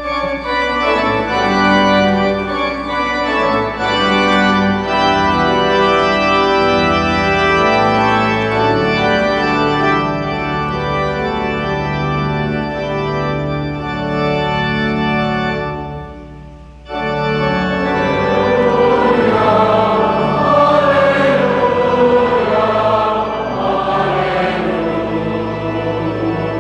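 Organ playing held chords; after a short break about 17 seconds in, a choir comes in singing with the organ.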